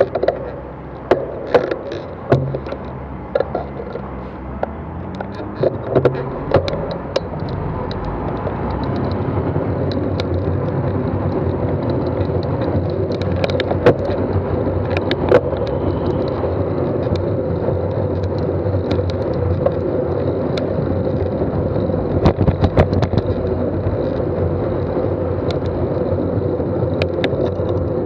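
Road traffic heard from a moving bicycle close behind a tanker truck: a steady rumble of engines and tyres that grows louder and steadier after about eight seconds, with scattered sharp clicks and knocks, most of them in the first few seconds.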